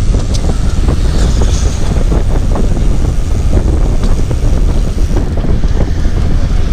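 Heavy wind buffeting the microphone, a loud steady low rumble, with many small knocks and rattles scattered through it.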